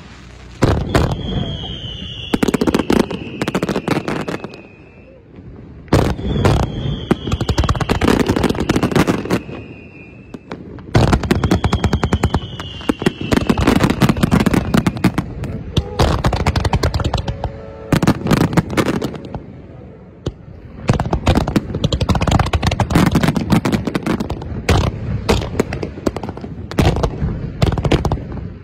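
Fireworks going off in rapid volleys of bangs and crackles, coming in waves several seconds long with short lulls between them. Three long high whistles, each falling slightly in pitch, sound through the first half.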